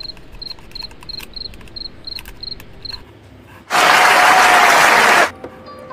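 A quiet, regular high chirping, about three short chirps a second, then loud audience applause starting nearly four seconds in and lasting about a second and a half before cutting off sharply.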